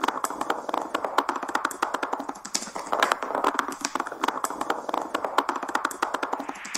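Rapid, irregular clicking and tapping, with a short whoosh near the end.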